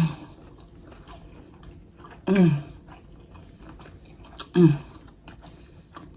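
Close-miked eating: chewing with small wet mouth clicks, broken twice by a brief voiced sound of enjoyment that falls in pitch.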